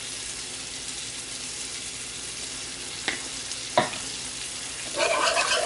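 Steady sizzling hiss of cooking on the stove, with two light knocks about three seconds in. About five seconds in, a spoon starts stirring and scraping through the thick potato and parsnip puree as the salt and pepper are worked in.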